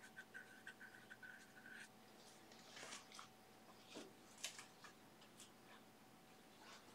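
Faint scratchy strokes of a hog-bristle brush working oil paint on a smooth aluminium composite panel. The strokes begin with a quick run of about ten little squeaks in the first two seconds, then a few scattered rustles and ticks. All of it is quiet.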